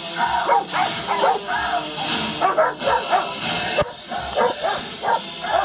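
Dogs barking and yipping in short, quick calls, with music playing in the background.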